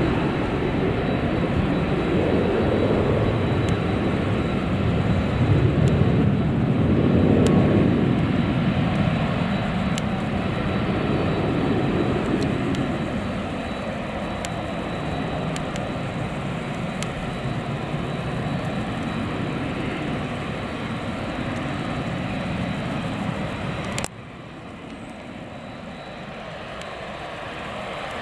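Boeing 737-300's CFM56-3 jet engines running at low power on the runway: a steady high whine over a broad rumble that swells twice in the first eight seconds or so. The sound drops abruptly about 24 seconds in.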